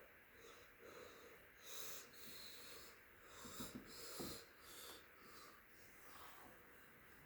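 Near silence with a few faint, soft breaths close to the microphone.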